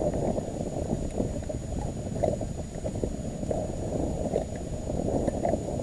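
Steady low rumble of wind and water against a small fishing boat, with a few faint taps.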